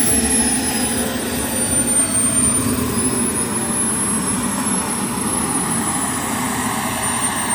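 MB-339 jet's engine running, a steady rush with a thin high whine that dips in pitch about two seconds in and then rises again.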